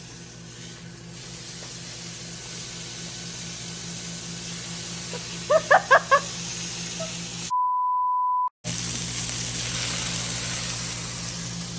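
Food frying in a pan, a steady sizzle over a low hum, with a few short vocal yelps around the middle. Then all sound cuts out under a single steady edited bleep about a second long, and the sizzling comes back louder.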